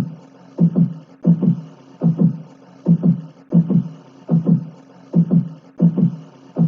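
Heartbeat-like pumping sound effect: pairs of low thumps, lub-dub, repeating steadily about every 0.7 seconds.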